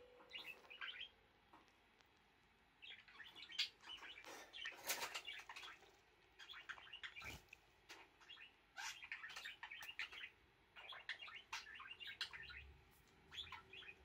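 A beakless pet budgerigar chirping and chattering softly, in short rapid phrases that stop and start several times.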